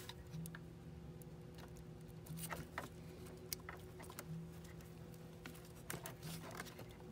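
Faint scattered clicks and light taps from hand work on plastic engine-bay parts, over a steady low hum.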